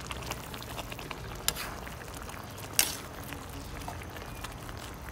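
Sardines and napa cabbage simmering in sauce in a wok, a steady bubbling with small clicks as a metal spatula stirs, and two sharp clinks of the spatula against the wok about a second and a half and three seconds in.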